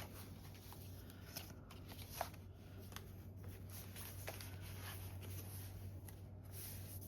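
Faint rustling and a few light taps of paper and cardstock being handled and positioned on a journal page, over a steady low hum.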